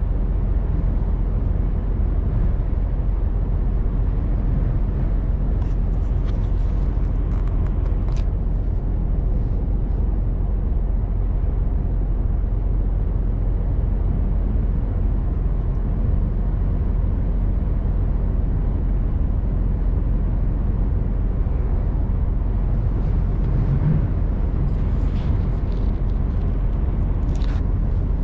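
Mercedes-Benz Actros 1851 truck's straight-six diesel engine running steadily, mixed with road and cab noise. A few faint clicks come through about a quarter of the way in and again near the end.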